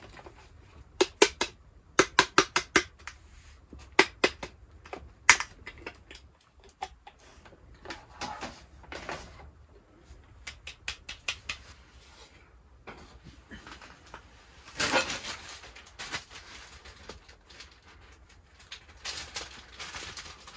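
Bursts of quick, sharp tapping clicks, five or six at a time, from a hard black cylindrical container being handled and taken apart on a metal camp table, then lighter clinks and clatter of small hard containers.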